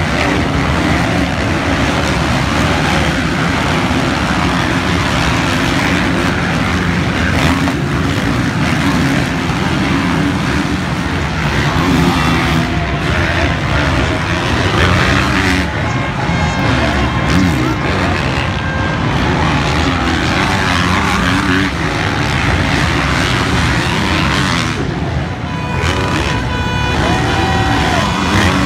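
Several motocross bikes' engines running hard as the riders race around the dirt track: a loud, continuous mix of engines with revs rising and falling.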